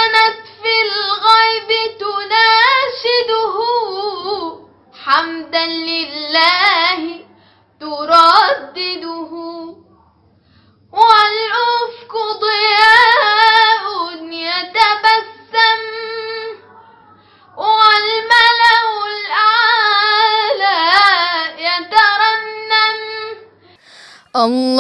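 A young girl's solo voice singing an unaccompanied, melismatic Islamic devotional chant. It comes in long, richly ornamented phrases with short breaks for breath between them.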